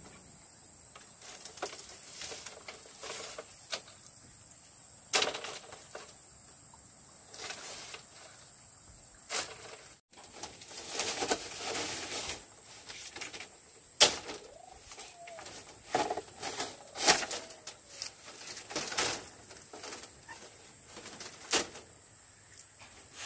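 Dry bamboo poles and slats knocking and clattering as they are handled and pulled from an old bamboo woodshed frame: irregular sharp knocks, some of them loud, with bursts of scraping and rustling in between.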